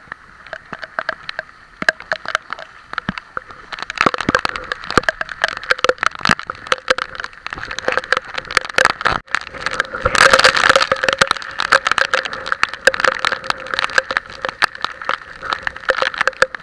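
Rain hitting the camera in dense, irregular clicks and crackles during typhoon weather. The clicks get heavier about four seconds in, with a louder rush of noise around ten seconds in.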